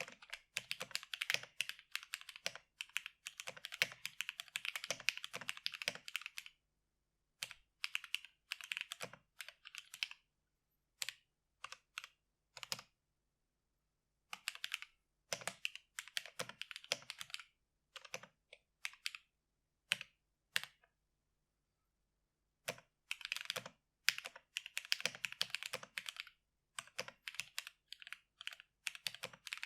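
Typing on a custom XD96 mechanical keyboard with lubed Gateron Cream linear switches, PBT keycaps and an aluminium case and plate. Fast runs of keystrokes alternate with scattered single strokes and short pauses.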